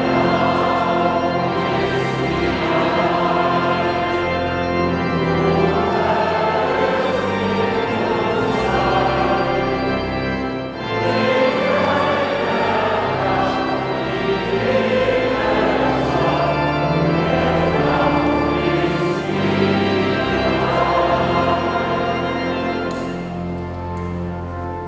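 Church organ playing sustained chords while voices sing along, a hymn at Mass. It grows a little quieter near the end.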